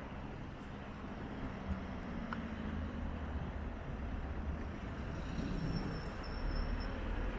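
Steady low rumble of wind and road noise while riding an electric scooter, growing a little louder over the last few seconds.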